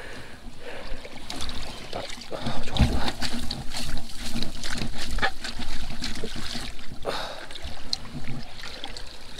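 Irregular water splashing and sloshing from people wading and working a hand scoop net in a shallow stream.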